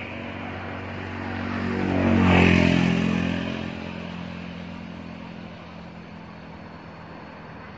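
A motor vehicle driving past, its engine swelling to a peak about two and a half seconds in and then fading to a low steady rumble.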